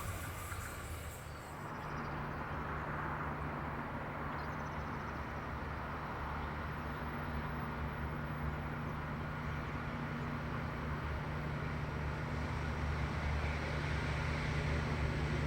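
A passing train's noise dies away at the start. Then a steady low engine hum sets in and slowly grows louder.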